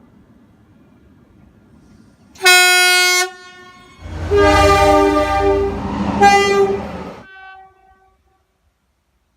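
Train horn: a short single-note toot, then about a second later a longer, louder blast of several notes together over the low rumble of the train, with a brief extra blast near the end before the sound cuts off.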